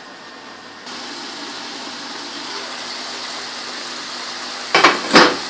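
Steady hiss of a covered pot of chopped goat liver and offal cooking on the stove, a little louder from about a second in, then two loud knocks about half a second apart near the end.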